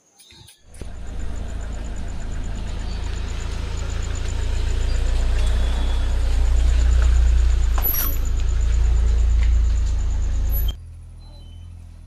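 Car on the move: a steady low rumble of road and engine noise that grows a little louder midway and cuts off abruptly near the end.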